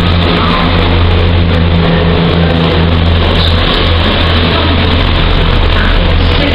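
Diesel engine of a loco-hauled passenger train running steady and loud, a deep drone with a rumble of coaches and wheels as the train moves along the platform.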